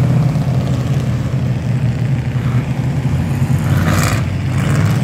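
Engines of several enduro stock cars running together on a dirt oval, a steady low drone, with a brief louder rush about four seconds in as a car passes close.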